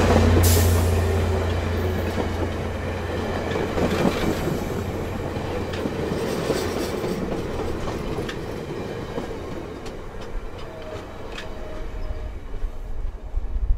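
A VIA Rail F40PH-2D diesel locomotive's engine drone passes and fades in the first second, then the LRC passenger coaches roll by, slowing as they arrive, with wheels clicking over the rail joints. A couple of short faint squeals come from the train near the end.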